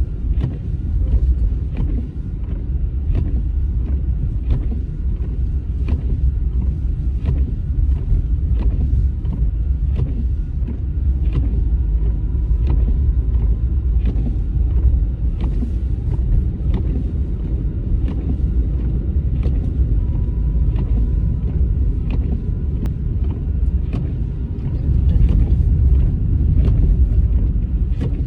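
Steady low road and engine rumble inside a car's cabin while driving on a snow-covered road, with faint regular clicks a little faster than one a second running through it.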